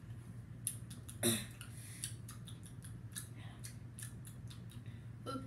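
Mouth clicks and smacks of a child chewing a jelly bean, scattered and irregular, with a sharper one about a second in.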